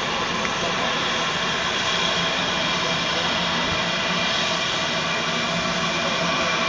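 GWR Hall class steam locomotive No. 4953 drawing slowly towards the platform, giving a steady, even hiss of steam with no clear exhaust beat.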